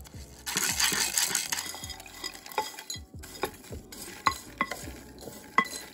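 A wooden spatula stirs popcorn kernels in hot oil in a pot, scraping and sizzling. Then come a string of separate ringing knocks and clinks as the spatula scrapes popped popcorn out of the pot into a glass bowl.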